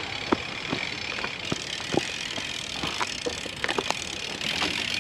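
BMX bike being walked along a dirt trail: irregular clicks, knocks and rattles from the bike and footsteps, over a steady hiss.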